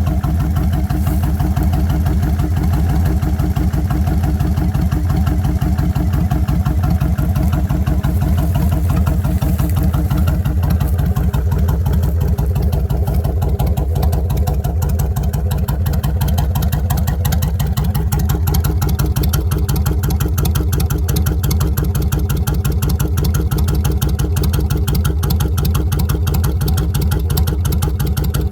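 2007 Kawasaki Vulcan 1600's V-twin engine idling steadily through 2.5-inch exhaust pipes with home-made baffles, a low, even run of exhaust pulses with no revving.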